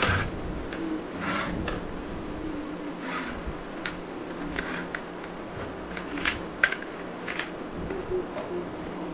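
Hard plastic toy crossbow being handled: scattered light clicks and rustles as parts are fitted and the elastic string is worked, with a sharper click about six and a half seconds in.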